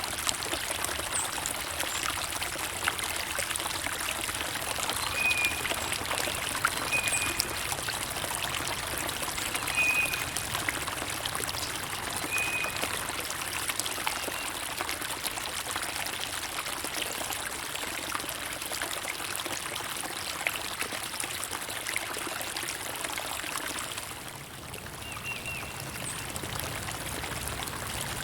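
Running water of a small stream, trickling and splashing steadily, with a few short, high bird chirps over it.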